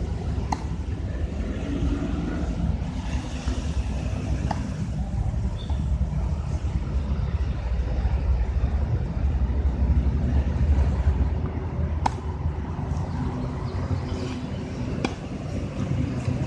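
Tennis ball being struck a few times on a hard court: sharp single knocks several seconds apart, over a constant low rumble.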